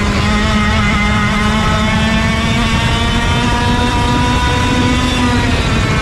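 Racing kart engine running hard at high revs, its pitch climbing slowly as it accelerates and easing off slightly near the end.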